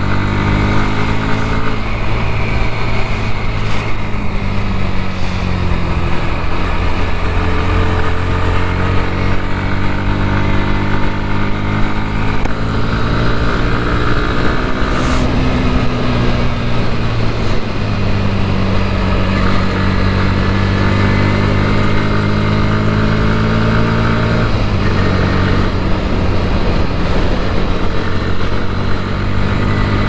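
Bajaj Pulsar NS160's single-cylinder engine under way on the move. Its pitch rises and falls as the throttle opens and closes, with a brief dip about three-quarters of the way through.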